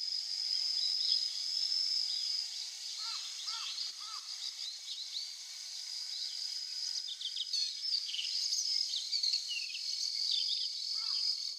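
Blue rock thrush singing: a series of short, curving notes and phrases, with a steady high-pitched hum underneath throughout.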